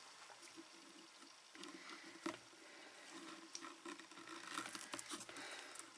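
Faint rustling and light taps of a ribbon being tied into a bow on a cardboard box, with one sharper tick about two seconds in.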